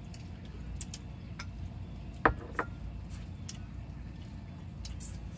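Two sharp clinks of eating utensils against a bowl about a third of a second apart, with a few faint ticks, over a steady low rumble.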